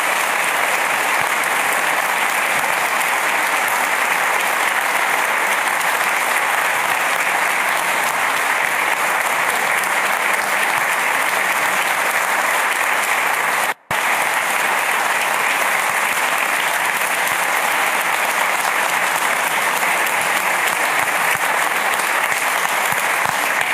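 Audience applauding, long, steady and loud, breaking off for an instant about halfway through.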